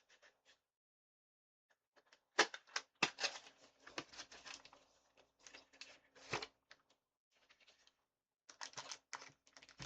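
Plastic packaging of a Pokémon trading card blister pack being opened: faint, irregular crinkling and crackling in two bouts with a short pause between, starting about two seconds in.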